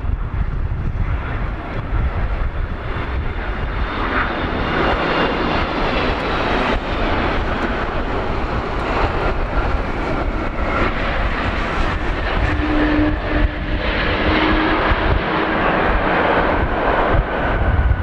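Boeing 777-200 airliner's twin jet engines on landing: a high fan whistle over a broad rushing roar as the plane comes in, touches down on a wet runway and rolls out. The noise builds and is loudest in the last few seconds.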